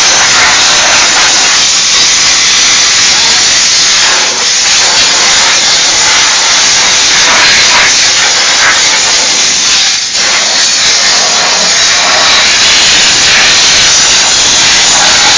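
Diesel steam cleaner's nozzle jetting steam in a loud, steady hiss, with two brief dips about four and ten seconds in.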